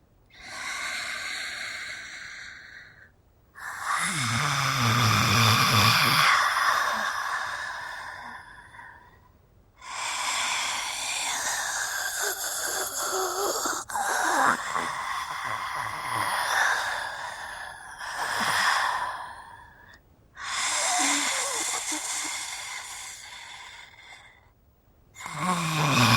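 Mummy monster sound effects: a series of long, raspy, hissing breaths and moans, about five of them, each lasting a few seconds with short silences between. The second one has a deep guttural growl under the hiss.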